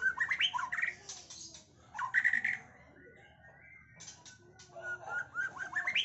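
Young white-rumped shama (murai batu) singing: quick runs of short whistled notes that sweep downward, a louder phrase about two seconds in, a quieter lull, then another fast series near the end. Its song is packed with imitations of other birds' calls.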